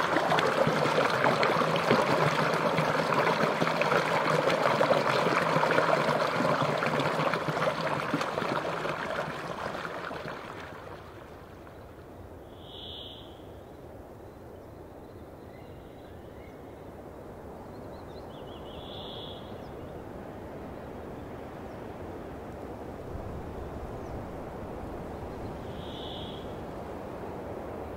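Shallow forest brook trickling and gurgling, fading out after about ten seconds. Then quiet open-air ambience with three short, high calls from a bird, several seconds apart.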